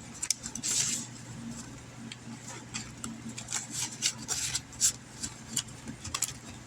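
Cash-savings envelopes being handled: paper rustling and rubbing with scattered light clicks and taps, including one longer rustle about a second in.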